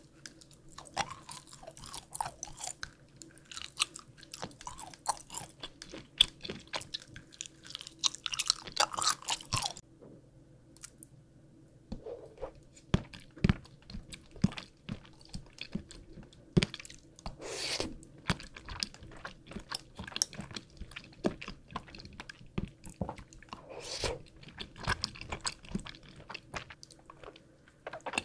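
Someone biting and chewing gummy and jelly candies, including sugar-coated gummy balls, with many sharp crunches and crackles and a short lull about ten seconds in.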